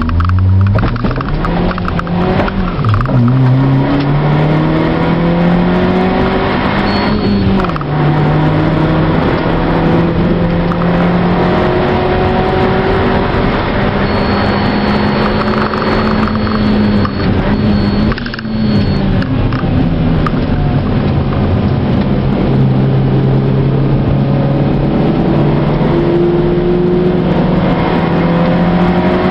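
Mazda Demio (Mazda2) engine heard from inside the cabin while lapping a race circuit. The engine note climbs and falls as the car accelerates and lifts, with brief breaks at gear changes, about three times.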